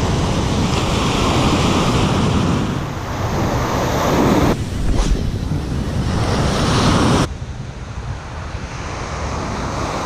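Ocean surf breaking and washing up the beach, with wind buffeting the microphone. The noise changes abruptly about four and a half seconds in and drops suddenly in level about seven seconds in.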